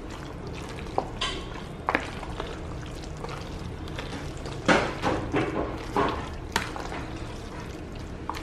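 A wooden spoon stirs a thick mayonnaise potato salad with sweetcorn in a plastic mixing bowl, making wet squishing and scraping sounds with occasional light knocks against the bowl. The stirring gets louder for a couple of seconds around the middle, over a steady low hum.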